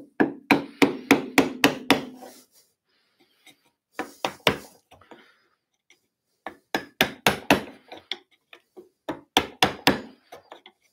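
Brass-headed mallet striking a hornbeam-handled 8 mm mortice chisel, chopping a mortice into wood. Sharp blows come in runs of about three a second, with short pauses between the runs.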